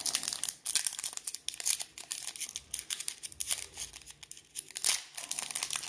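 Trading card pack wrapper crinkling as it is handled and torn open, with irregular sharp crackles.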